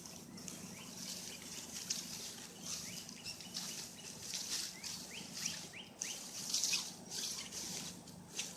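Birds chirping in a series of short rising chirps, over bursts of high hiss and a faint steady low hum.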